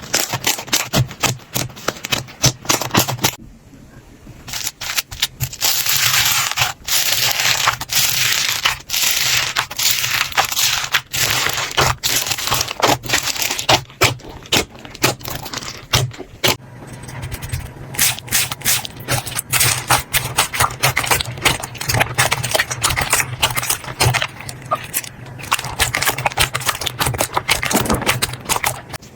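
Hands squishing, pressing and poking slime, giving a dense, irregular run of sticky clicks and crackles with a short lull about four seconds in.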